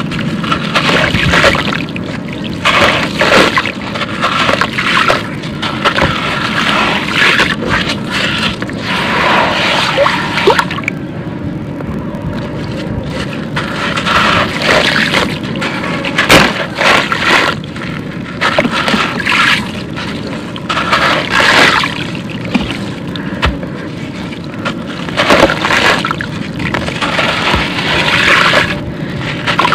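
Wet, crumbly concrete being squeezed and broken apart by hand into a tub of water. Gritty crunching and crumbling come in irregular bursts, mixed with splashing and trickling as water and grit fall back into the tub.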